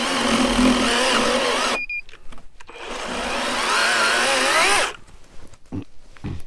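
Electric chainsaw cutting birch wood in two runs of about two seconds each, with a short pause between them. The motor's pitch wavers as the chain bites into the log.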